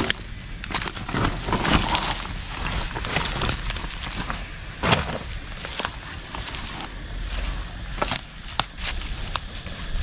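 A steady, high-pitched insect drone, a little weaker after about eight seconds, with scattered rustles and knocks of movement through vegetation.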